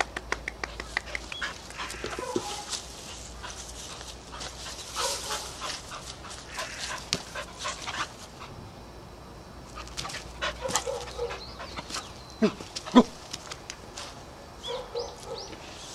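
Seven-month-old Labrador puppy panting in quick, rhythmic breaths, with short whines between them and two short, sharp, louder sounds near the end.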